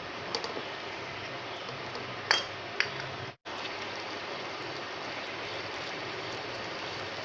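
Mutton pieces in yogurt and spices frying in a karahi with a steady sizzle. A wooden spatula clicks and knocks against the pan a few times in the first three seconds, then the sizzle goes on alone after breaking off for an instant.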